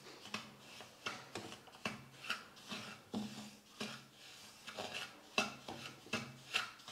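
Wooden spatula scraping and stirring dry semolina in a kadai, soft repeated scrapes two or three a second, as the rava is dry-roasted with a little ghee over a low flame.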